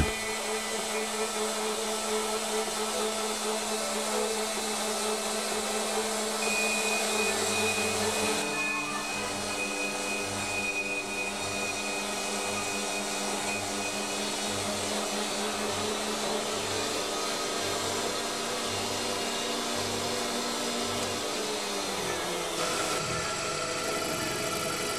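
Small metal-cutting band saw running, its blade cutting through a steel tube with a steady motor hum. Near the end it gives way to a small lathe running. Orchestral music plays faintly underneath.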